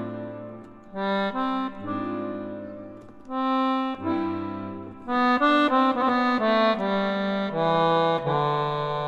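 Background music: an accordion playing phrases of chords over low bass notes, settling into long held chords near the end.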